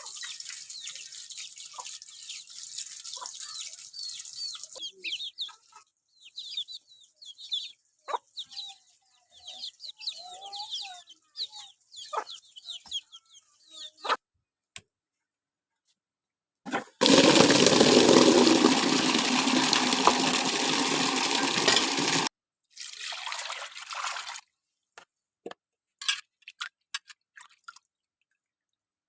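Water dripping and splashing, then running water for about five seconds that starts and stops abruptly, followed by a shorter, fainter burst.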